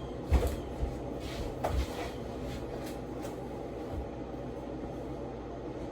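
A few soft knocks and bumps in the first two seconds, then a steady low room hum.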